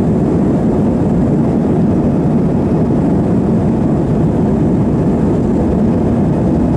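Steady low rumble inside the cabin of an Airbus A321 as it taxis, its jet engines running at taxi power.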